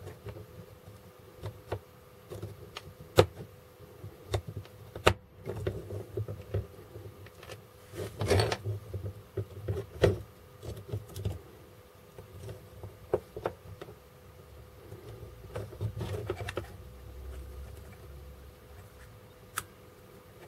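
Scattered small clicks, taps and knocks of plastic parts being handled and pushed together as a desoldering gun's handle is reassembled, busiest about eight to ten seconds in. A faint steady hum sits underneath.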